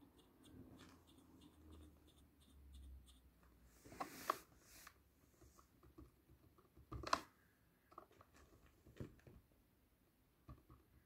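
Mostly quiet, with faint rustling and scratching as a cat moves and paws about on bed covers. Two louder short scrapes come about four and seven seconds in.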